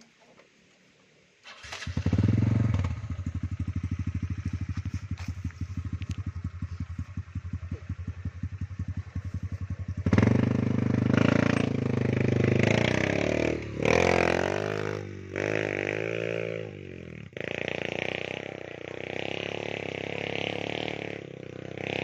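Trail motorcycle's engine, loaded with logs, starting about a second and a half in and idling with a rapid, even putter. From about ten seconds it is revved, the revs rising and falling several times, then it runs on steadily.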